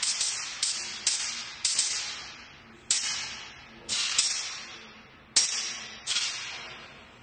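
Cold nitrogen gas-jet attitude-control thrusters on a reusable rocket test vehicle, firing in about nine short hissing bursts. Each burst starts sharply and trails off over half a second to a second.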